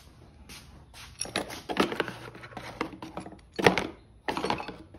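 Irregular metallic clanks and knocks of hand tools being handled, as the flywheel holding tool is taken off the engine once the flywheel bolts are torqued. The knocks start about a second in, with the loudest one about three-quarters of the way through.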